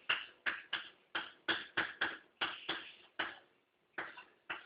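A series of irregular sharp taps or clicks, about three a second, with a short break near the end.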